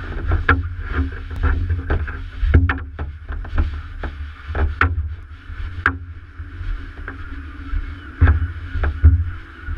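Water slapping and splashing against a stand-up paddleboard's hull, picked up by a camera on the board's deck: irregular sharp splashes several times a second over a steady low rumble of wind on the microphone.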